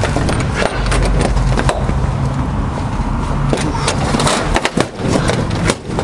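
A steady idling engine hum, with a few sharp metal clanks and scrapes from forcible-entry tools worked on a padlock.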